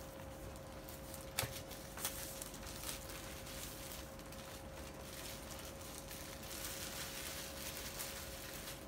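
Cardboard product box being handled: a few light knocks and taps about one and a half, two and three seconds in, then a soft sliding rustle near the end as the box is pulled from its sleeve and set down. A faint steady hum runs underneath.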